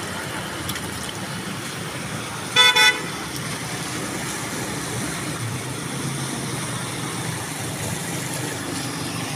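A vehicle horn gives two short toots about two and a half seconds in, over a steady background of traffic moving through floodwater.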